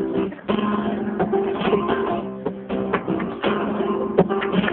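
Flamenco guitar playing strummed chords, with sharp percussive hits in time with it.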